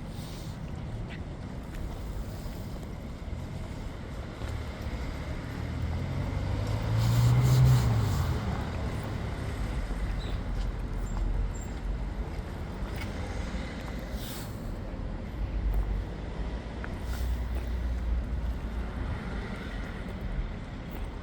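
Street traffic: a steady low rumble, with one vehicle passing close about seven seconds in, swelling and fading away.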